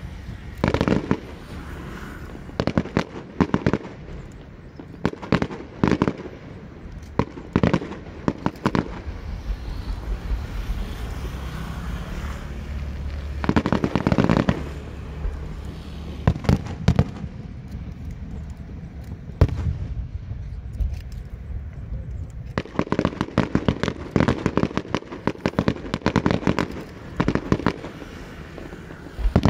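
Fireworks display: repeated sharp bangs of shells bursting and launching, in clusters, over a low rumble. There is a dense rapid volley about halfway through and a long run of rapid bangs near the end.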